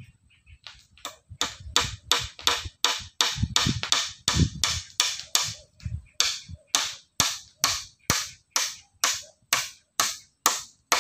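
Repeated sharp blows from a tool working in a steady rhythm, about two a second, starting about a second in.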